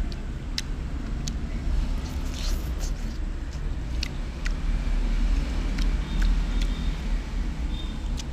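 Eating sounds: a handful of sharp clicks and taps as a utensil works through vegetables in a plastic bowl, over a steady low rumble.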